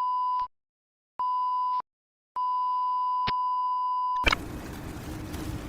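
Electronic beep tones on one steady pitch: the first ends almost at once, a short one follows about a second in, then a longer one of about two seconds. A click cuts off the last beep and a steady noisy rumble with a low hum takes over.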